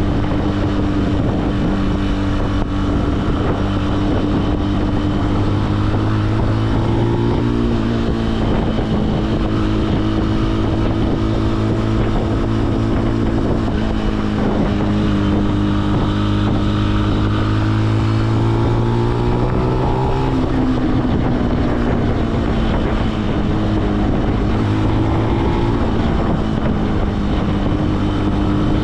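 Benelli BN125's single-cylinder four-stroke engine running at low, fairly steady revs. Its pitch rises gently and then drops three times: about 8 s in, around 20 s in, and near 26 s.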